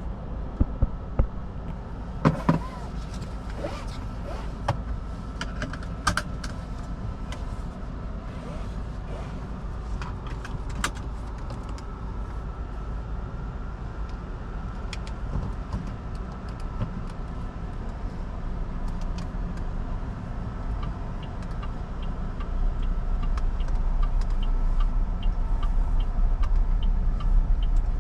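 Clicks and knocks from the controls inside an MG Hector Plus SUV's cabin. About three-quarters of the way through, the low rumble of the 1.5 turbo petrol SUV driving off rises in level, with a light, regular ticking.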